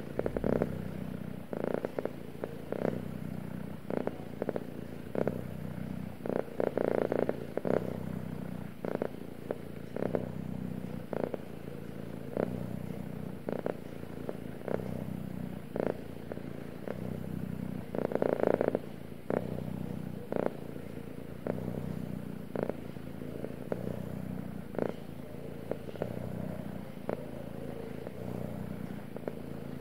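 Domestic cat purring steadily, with brief soft rustles every second or so.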